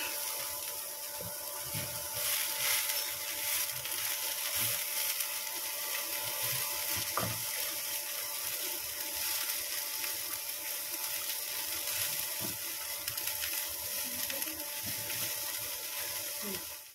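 Shredded cabbage frying lightly in oil in a pan: a steady sizzle with a few faint clicks.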